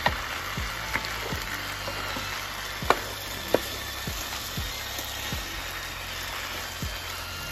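Wooden spoon stirring seasoned sliced potatoes and onions in a skillet, with a few sharp knocks of the spoon against the pan over a steady sizzle.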